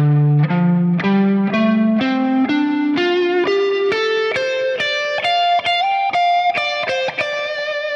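Kiesel Delos electric guitar on its neck pickup, through the Axe-Fx III's FAS Express amp model, playing a single-note pentatonic scale that climbs steadily from low to high at about two notes a second. A pitch-follower EQ raises the low mids around 450 Hz more and more as the notes go higher, to give the high notes more weight.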